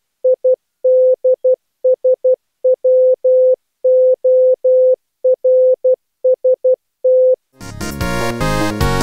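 Morse code sent as one clean, mid-pitched tone keyed in short and long beeps. About seven and a half seconds in it stops and electronic theme music begins.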